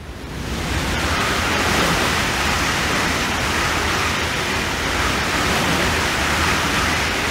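A Fuxing CR400-series high-speed train passes through the station at speed. Its rush of air and wheel-on-rail noise swells up over the first second, then holds as a steady loud rush.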